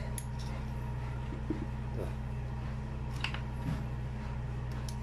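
Steady low hum with a few faint, short metal clicks and taps from a screwdriver worked inside a hydraulic floor jack.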